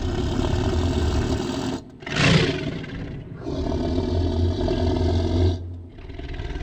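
Tiger growling and roaring: a long growl, a short louder roar about two seconds in that falls in pitch, then a second long growl that stops near the end.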